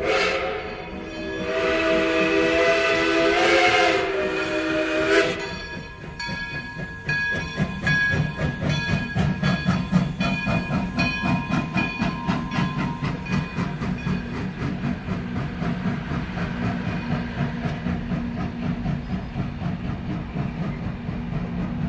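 Steam locomotive whistle blowing one long chord of about five seconds, pitch lifting slightly near its end, for the crossing. Then the train rolls past, its wheels clicking in a steady rhythm over the rail joints and the grade crossing.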